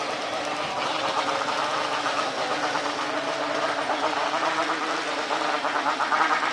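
Steady jet engine noise from a Lion Air Boeing 737 rolling along the runway after landing, mixed with the running engines of motorcycles and a passing car close by.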